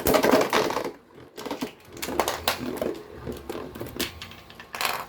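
Small plastic Beyblade parts clicking and rattling as they are handled, in irregular short clicks with a louder cluster near the start and another near the end.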